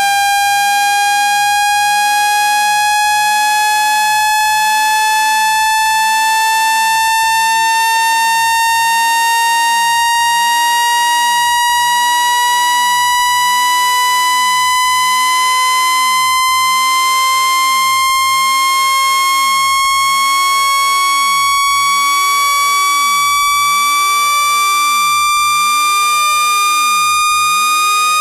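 Synthetic water-eject tone for clearing a phone speaker: one steady, buzzy electronic tone whose pitch climbs slowly and evenly.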